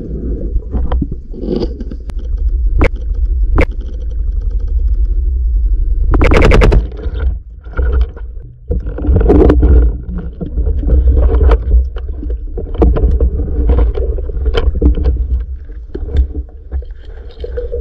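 Underwater sound heard through a diver's camera while swimming: a steady low rumble of water moving past, with scattered sharp clicks and knocks. About six seconds in there is a brief, loud hissing rush.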